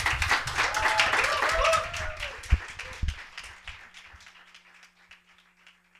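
Audience applauding after a song, dense clapping with a few voices calling out early on, thinning and dying away over about five seconds.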